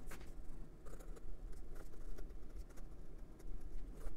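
Fountain pen writing cursive on notebook paper: a Parker Jotter medium nib in a Moonman (Majohn) Ti500 titanium pen, scratching softly with small ticks at each stroke.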